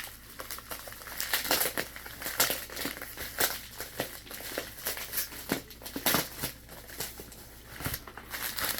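Irregular crinkling and crackling of packing material being handled and unwrapped by hand.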